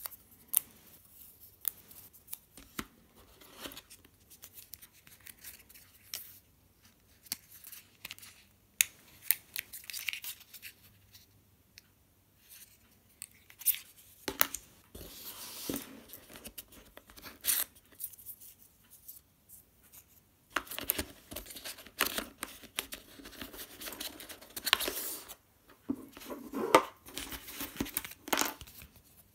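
Hands unpacking phone accessories: sharp clicks and taps of the plastic plug charger and cable, with rustling and tearing of paper wrapping. The paper noise comes in longer stretches, around a quarter of the way in and again through most of the second half.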